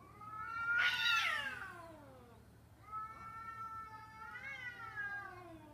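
Cats caterwauling in a street fight, giving long drawn-out yowls. The first swells to a loud wail about a second in and slides down in pitch. A second long yowl starts about three seconds in, rises and then sinks away.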